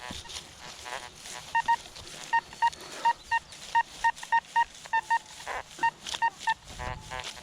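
Nokta metal detector sounding a run of short, identical high beeps, a few a second, as the coil passes back and forth over a buried metal target.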